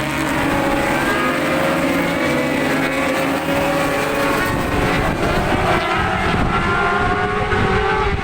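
Several racing motorcycle engines running hard together, their pitch rising slowly as they accelerate.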